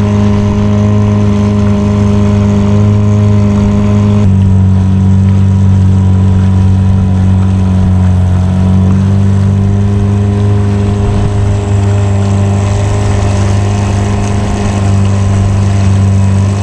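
Sailboat's outboard motor running steadily at cruising speed, now running properly after being raised higher in the water; it had struggled to idle and rev while mounted too deep. The engine note shifts abruptly about four seconds in.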